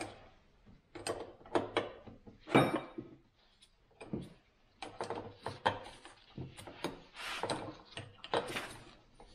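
A hand wrench working the hydraulic hose fitting on a Volvo Penta SX Cobra gimbal housing: irregular metal clicks, clanks and short scrapes as the fitting is tightened. The sharpest clank comes about two and a half seconds in.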